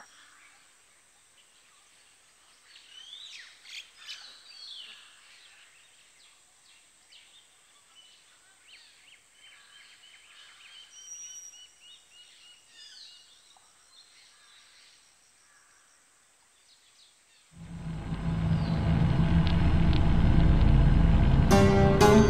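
Birds chirping and trilling over quiet outdoor ambience. About 17 seconds in, a deep swell of background music rises and grows loud, with plucked notes near the end.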